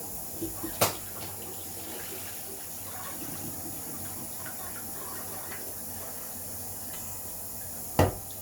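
Water running steadily from a kitchen tap into the sink while peas are washed, with a sharp knock about a second in and another near the end.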